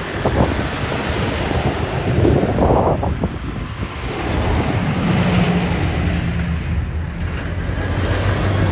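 Strong wind buffeting the microphone over road traffic noise, with a vehicle engine hum building from about halfway through.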